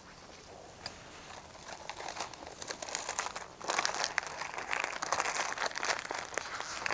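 Dry crinkling and crackling rustle of something being handled or crushed, full of small sharp clicks. It grows louder about halfway through.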